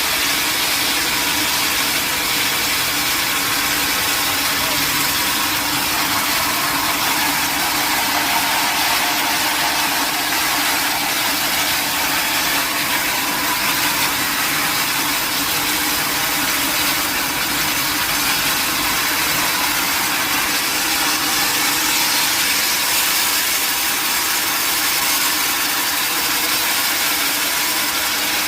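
Sawmill machinery running steadily: a constant loud mechanical noise with a steady hum, unchanging throughout.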